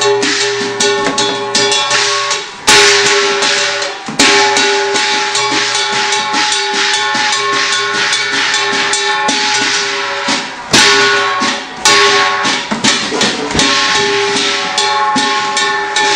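Hakka qilin dance percussion: a drum beaten in quick strokes with cymbals and a ringing gong, playing continuously, with several loud cymbal crashes along the way.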